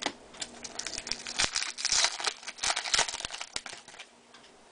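2011 Topps Chrome football trading cards being handled: a run of quick rustles and light clicks that thins out near the end.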